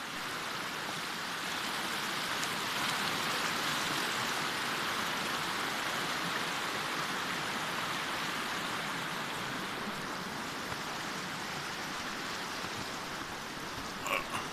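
Mountain river rushing over rocks, a steady even rush of water. A couple of brief sharp sounds come near the end.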